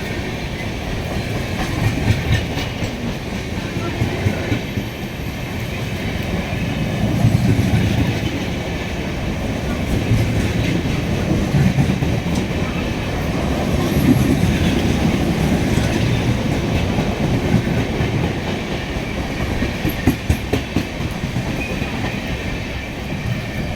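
Express train coaches rolling past, steel wheels clattering over rail joints with a continuous rumble that swells and eases.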